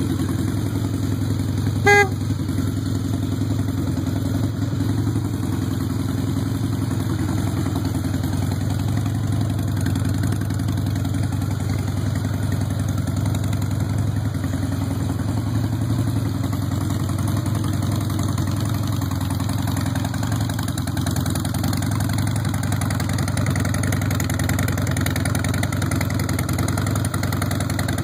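The 88-cubic-inch fuel-injected Twin Cam V-twin of a 2001 Harley-Davidson Softail Night Train idles steadily as it warms up from a cold start. A single short beep sounds about two seconds in.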